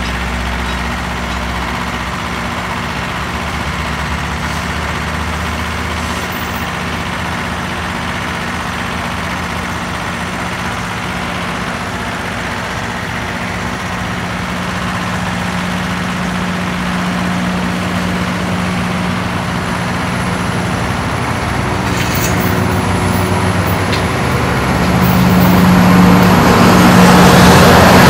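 Heavy diesel engine running steadily with a low drone, swelling louder near the end.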